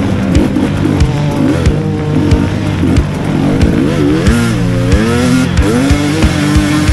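Enduro dirt bike engine revving up and down while riding, mixed with background music that has a steady beat of about two beats a second.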